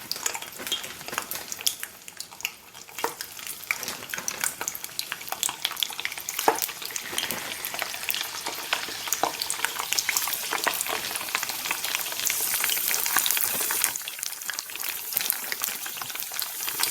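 Thinly sliced, dried Lao beef jerky (sin savanh) deep-frying in hot oil: dense sizzling and crackling that grows louder about halfway through.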